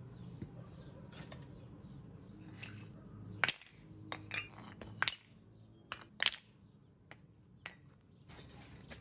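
Freshly cast aluminum ingots being knocked out of metal ingot molds and dropped onto concrete. Three sharp metallic clanks with a brief high ring come about three and a half seconds in, at five seconds and just past six seconds, with lighter knocks and clinks of the molds between them.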